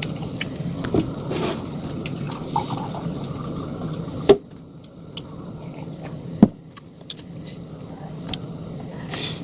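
Scattered light clicks and clinks over a steady low hum, with two sharp knocks, about four seconds in and again about six and a half seconds in.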